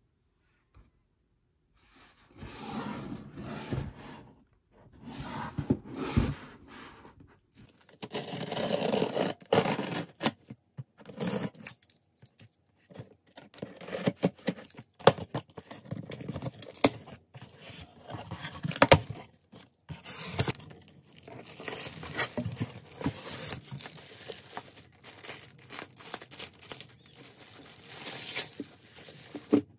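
Opening a cardboard shipping box by hand: packing tape slit with a utility knife and torn, cardboard flaps scraped and knocked, with many small clicks and rustles. Near the end a plastic bag crinkles as the parcel inside is handled.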